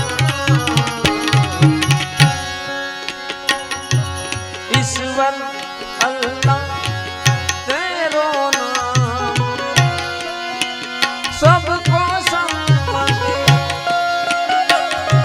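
Indian devotional music without singing: a tabla plays a quick rhythmic pattern of deep strokes and sharp bright hits, under a sliding melodic instrumental line.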